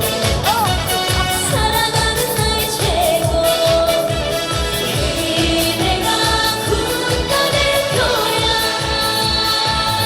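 A trot song performed live: a woman sings with vibrato over a musical accompaniment with a steady beat.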